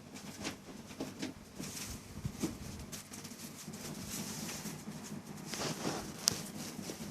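Dogs playing together: paws pattering and scuffling in quick, irregular steps, with one sharp click about six seconds in.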